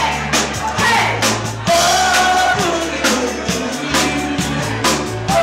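Live band playing boogie-woogie: acoustic guitar and a bass line stepping from note to note over a steady beat, with a singer's voice on top.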